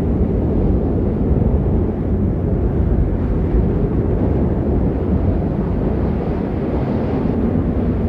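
Steady low wind roar of a snowstorm ambience, an even rushing noise without breaks or distinct events.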